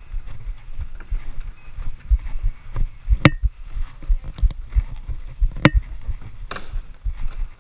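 Irregular low thumps of a body-worn action camera jostling as a dek hockey player moves on plastic sport tiles. Two sharp clacks, about two and a half seconds apart, come from a hockey stick striking the tile floor.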